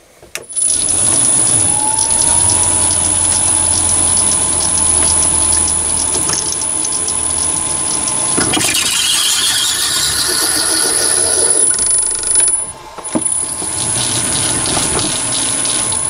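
Mini lathe spindle motor starting up and running at low speed with a steady high whine, while a quarter-inch BSP tap is fed into a brass door knob in the chuck. Just past halfway the sound grows louder and harsher, and about three-quarters of the way through the motor drops out for a moment before running again.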